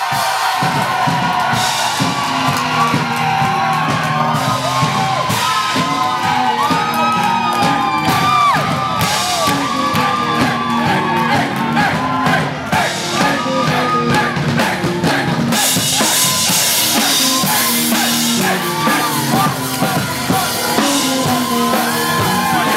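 Rock music with drums, bass and singing, and a crowd whooping and shouting over it.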